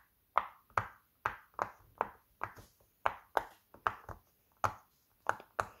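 Bubbles of a silicone dinosaur-shaped pop-it fidget toy pressed in one after another by fingers, a steady run of short pops about two or three a second. The pops are not very loud, as is typical of the cheaper market-bought pop-its.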